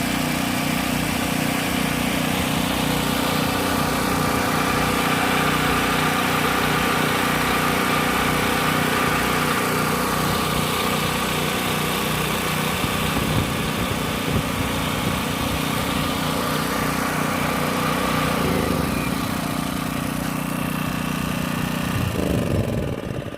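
Two small portable generator engines, a Firman 3650 and a Champion 1200, running together at a steady speed. About 22 seconds in, the engine sound drops in pitch and fades as they wind down after shutoff.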